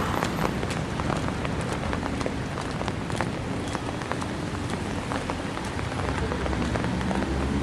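Rain falling on wet stone paving: a steady hiss scattered with many small ticks of drops.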